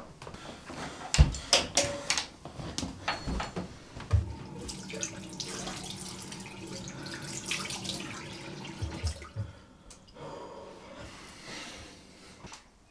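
A few sharp knocks and clatters, then a bathroom basin tap running into the sink for about five seconds before shutting off.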